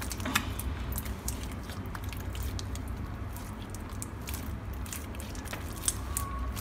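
Freshly made, still-sticky slime being kneaded and squeezed by hand, making many small, irregular wet clicks as it pulls away from the fingers.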